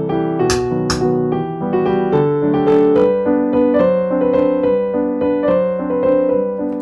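Background piano music with slow, gently stepping notes. Two short sharp clicks sound about half a second and a second in.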